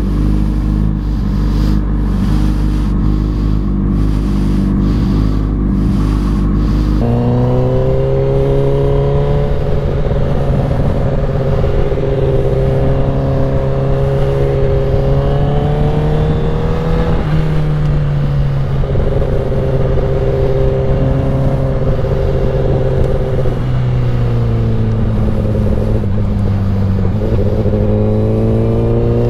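Inline-four liter-class sport motorcycle engine. It idles steadily for about seven seconds, then is heard under way at low speed, its pitch rising and falling with the throttle, with wind rushing over the helmet camera.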